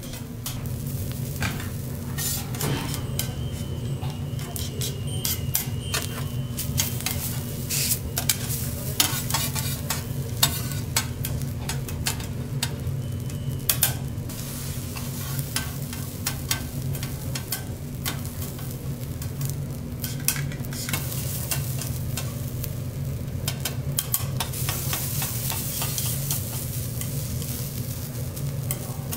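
Fried rice sizzling on a hot steel teppanyaki griddle, with rapid clicks and scrapes of a metal spatula and tongs striking and sliding on the plate. A steady low hum runs underneath.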